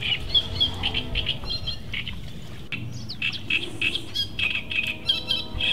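Small birds chirping: a rapid run of short, high chirps with a few quick falling notes about halfway through.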